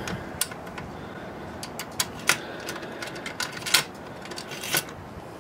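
Irregular sharp clicks and light taps, a dozen or so, from tools being handled with no motor running.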